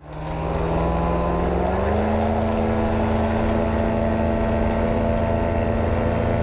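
Two-stroke engine of an open-frame ultralight aircraft running in flight. It fades in, rises in pitch about two seconds in as the engine speeds up, then holds a steady note.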